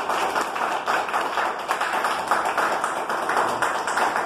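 An audience clapping, many hands at once in a dense, steady round of applause.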